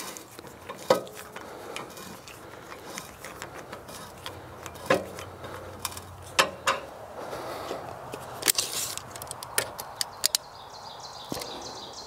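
Irregular sharp metal clicks and clanks from the sawmill bed's hardware as a log is adjusted and raised on the mill's toe boards, with quieter knocks in between.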